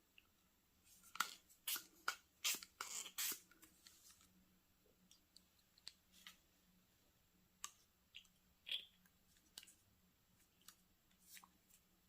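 Small sharp clicks and taps from handling the dip pen, ink bottle and paper while spattering fountain pen ink: a quick cluster about a second in, then scattered single taps.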